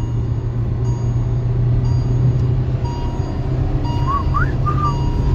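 Cabin drone of a Hyundai Verna 1.5 turbo-petrol with a DCT gearbox running at speed: a steady engine and road hum, with a faint electronic beep repeating over it.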